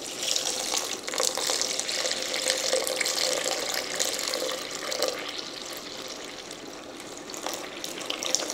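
Water poured in a steady stream from a plastic measuring jug into a mixing bowl onto sourdough starter, splashing and trickling; the pour eases off somewhat in the second half.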